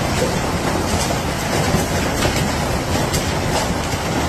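Hail and heavy rain pelting down in a steady, loud rush, with scattered sharp clicks of individual hailstones striking hard surfaces.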